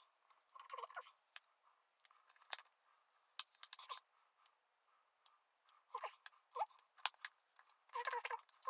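Alginate dental impression material being worked by hand: irregular bursts of wet, squishy scraping and crunching with sharp clicks, separated by short pauses.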